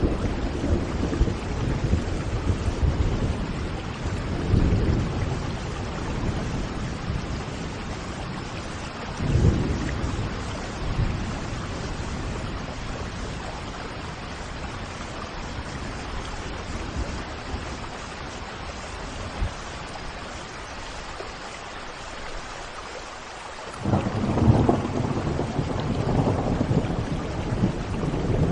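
Steady rain with rolling thunder: low rumbles swell twice in the first ten seconds, and a louder, longer rumble builds near the end.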